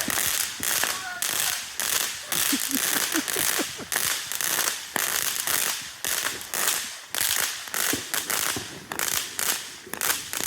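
Consumer fireworks going off in a rapid run of sharp pops, about two to three a second, each fading quickly.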